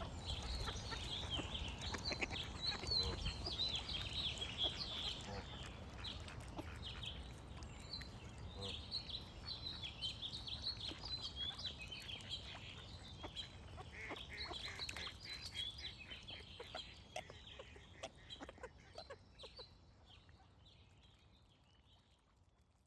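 Ducks quacking amid a busy chorus of small songbirds chirping, over a low background rumble. The whole soundscape fades out gradually over the second half.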